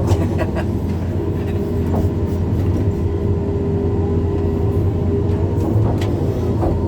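Backhoe excavator's diesel engine running steadily while digging, with a held hydraulic-like tone and a few short knocks from the machine working.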